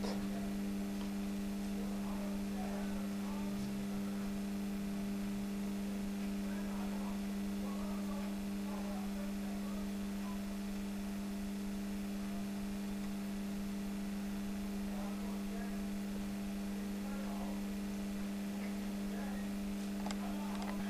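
Steady electrical hum: one low tone with a few fainter overtones above it, unchanging in pitch and level.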